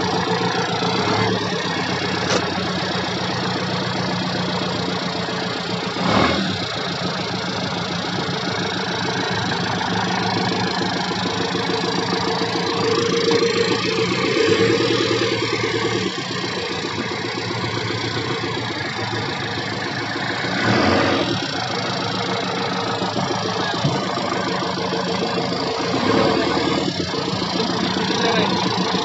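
JCB 3DX backhoe loader's diesel engine idling steadily, with three short louder rushes along the way.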